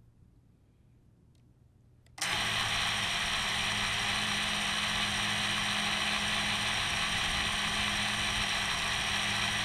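Brushless motors of a small FPV racing quadcopter (Lumenier Freybott motors on Dal Cyclone 5045 props) start spinning suddenly about two seconds in and run at a steady idle with the quad still on the ground, heard loud from the GoPro mounted on the frame.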